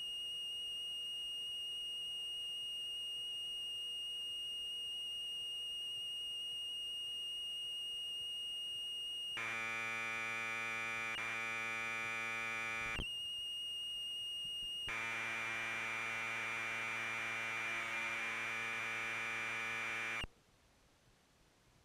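Commodore 1530 datasette's tape signal played through speakers while a program loads: a steady high-pitched leader tone for about nine seconds, then a harsh buzzing stretch of recorded data, a brief return of the tone, and a second buzzing data stretch that cuts off abruptly about twenty seconds in. The head alignment is close enough for the program to load.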